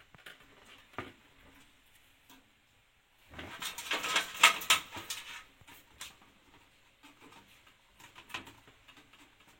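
Handling noises as a motherboard is shifted and seated in a PC case against the back-panel I/O shield: scattered light clicks and knocks, with a louder run of scraping and clicking in the middle.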